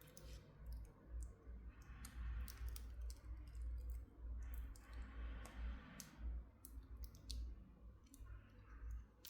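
Watch box and packaging being handled: scattered light clicks and taps, with two stretches of rustling.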